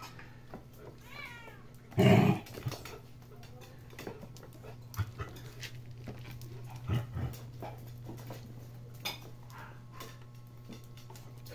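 A puppy and an adult dog at play: a short high yelp about a second in, then a loud, short bark-like burst about two seconds in. Scattered clicks, likely claws on the tile floor, and a steady low hum run underneath.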